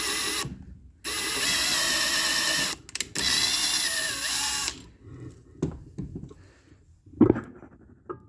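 Cordless Ryobi One+ HP hammer drill with a spade bit, running in three bursts of one to two seconds each as it bores pilot holes; its pitch sags and recovers under load. In the second half there are scattered knocks and clatter of handling.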